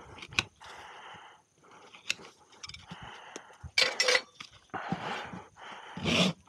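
Horse hoof being worked with hand tools: short scraping strokes of a hoof knife paring the sole, with a few sharp clicks and a louder scrape about four seconds in. Near the end a farrier's rasp starts filing across the hoof in quick, loud strokes.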